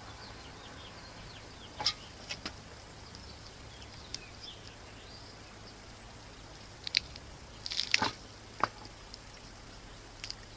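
Scattered short metallic clicks and clinks of motorcycle rear-wheel parts being handled during reassembly, with a small cluster of louder clinks about eight seconds in.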